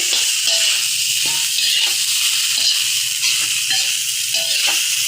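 Fried rice sizzling in a hot oiled pan while being stirred, with repeated scraping strokes of the spatula through the steady sizzle.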